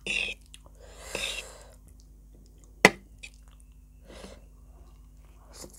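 Close-up mouth sounds of a person eating instant noodles: a few short, wet chewing bursts. About three seconds in comes a single sharp click, the loudest sound.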